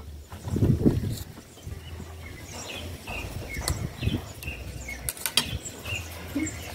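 Small birds chirping: a run of short high chirps about every half second. A brief low muffled sound comes about a second in, and a few sharp clicks in the second half.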